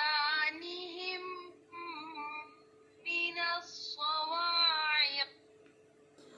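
A female voice chanting a Qur'anic verse in slow, melodic tajweed recitation, in several phrases with long drawn-out vowels and short pauses, ending about five seconds in. A faint steady hum lies underneath.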